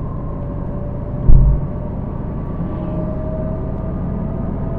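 Car driving, heard from inside the cabin: a steady low rumble of tyres and engine, with one heavy thump about a second in.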